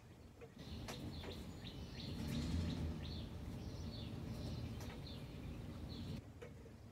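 Small birds chirping in quick, repeated short high notes over a low wind rumble on the microphone. The rumble is strongest about two and a half seconds in, and the sound starts suddenly about half a second in and cuts off suddenly near the end.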